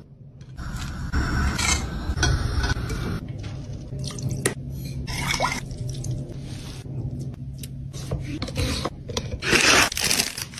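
Close-miked food-preparation sounds in quick succession: wet rubbing and scraping as raw shrimp are peeled, a short pour of liquid onto cooked rice in a wooden bowl, and a utensil scraping through whipped cream, which is the loudest part near the end. A steady low hum runs underneath.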